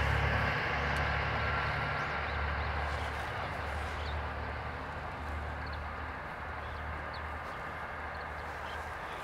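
Diesel engine of a Kyoto Tango Railway 'Tango no Umi' (KTR 8000 series) railcar running as it moves away, a low drone that fades slowly.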